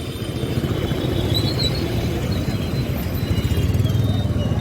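Steady low vehicle rumble of road and traffic noise, swelling slightly near the end.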